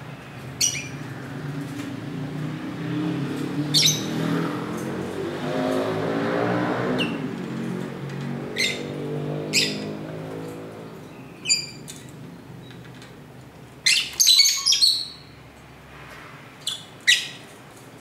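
Lovebirds giving short, sharp chirps every second or two, with a quick burst of several calls about fourteen seconds in. Underneath, a passing vehicle's engine swells to a peak about six seconds in and fades away by about eleven seconds.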